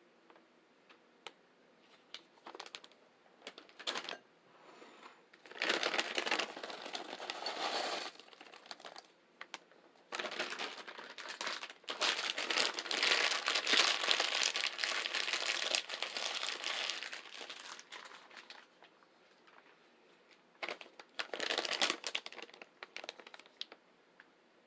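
Food packaging crinkling and rustling in several irregular bouts, the longest lasting about six seconds, with small clicks and quiet gaps between them.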